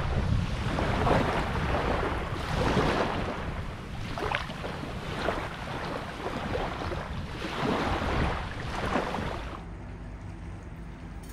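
Small lagoon waves washing up onto sand at the water's edge and drawing back, in repeated rising and falling washes. About ten seconds in it gives way to a quieter, steady outdoor hush.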